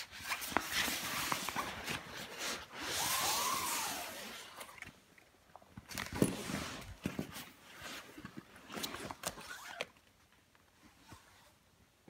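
Leather bomber jacket being handled and turned over: rustling of the leather and lining with scattered small clicks and knocks, going much quieter near the end.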